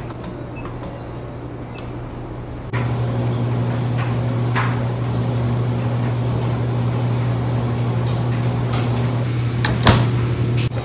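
Steady low electrical hum of laundry-room machines, louder from about three seconds in, with a few light clicks and a sharp knock near the end as the front-loading washer's door is pushed shut.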